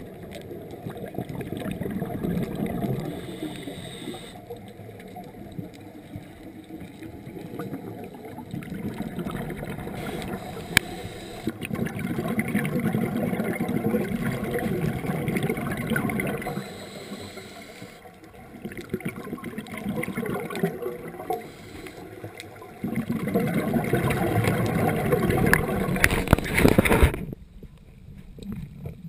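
Scuba diver's exhaled bubbles from a regulator, gurgling and rumbling underwater in surges every few seconds with quieter breaths between. The sound cuts off suddenly near the end.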